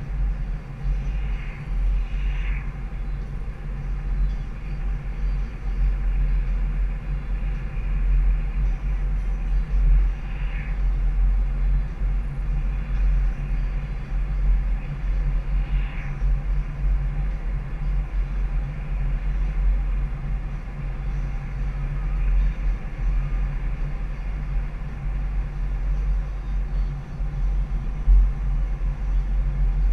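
Car driving at highway speed, heard from inside the cabin: a steady low rumble of tyres on the road and the engine, with a few faint brief squeaks.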